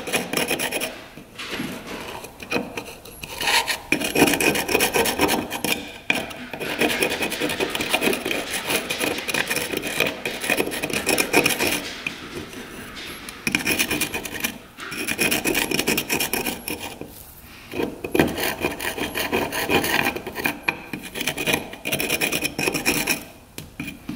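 A brush scrubbing a rusty metal gas cap wet with rust dissolver, a rapid back-and-forth scraping that comes in runs of a few seconds with short pauses between them.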